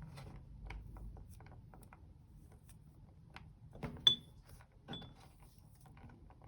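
Meat grinder's metal mechanism clicking and rattling softly as it works, with one sharp metallic clink that rings briefly about four seconds in and a smaller one about a second later.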